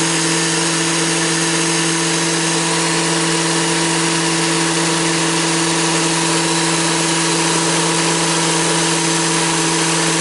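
Bullet-style personal blender running steadily at full speed, its motor holding an even pitch as it purees a liquid spice marinade.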